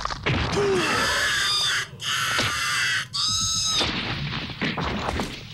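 A film monster's shrill, screeching cries, three drawn-out calls in a row, followed by a noisy scuffle near the end.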